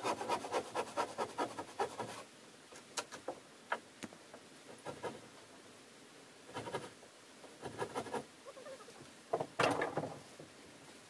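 Wooden floor planks creaking and knocking as they are levered with a long bar and walked on: a fast run of creaks and clicks in the first two seconds, scattered knocks after, and the loudest cluster a little before the end.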